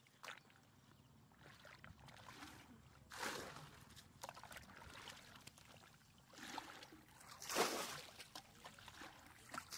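Muddy water being bailed from a shallow pool with a plastic bucket: the bucket scoops, and the water is flung out in three splashing bursts, the loudest about two-thirds of the way in, with low sloshing between.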